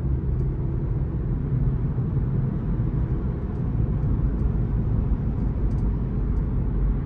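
Car engine and tyre noise heard from inside the cabin while driving at a steady speed: an even, steady low rumble.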